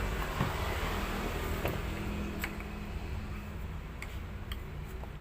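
A few light clicks and taps, typical of parts and screws being handled while an electric drill is taken apart, over a steady low motor hum.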